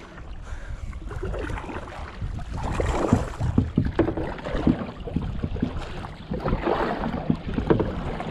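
Water splashing and knocking irregularly against a small boat on a moving river, over a steady low rumble.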